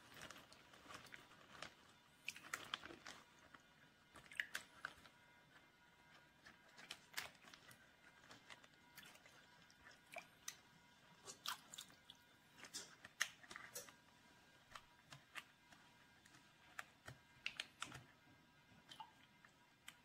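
Faint, scattered crackling of a plastic zipper bag being squeezed and pressed by hand down into a pot of water, pushing the air out around the steak so the bag ends up close to vacuum-sealed.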